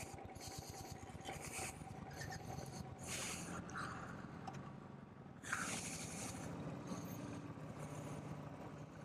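An engine running low and steady, with short bursts of hiss every second or two.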